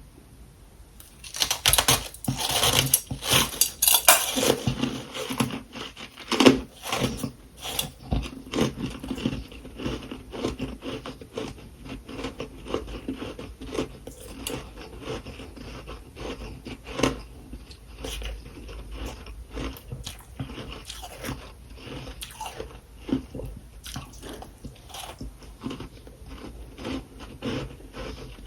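A person biting into and chewing freezer frost close to the microphone. The crunching starts about a second in, is loudest and densest for the first few seconds, then settles into a run of quicker, softer chewing crunches.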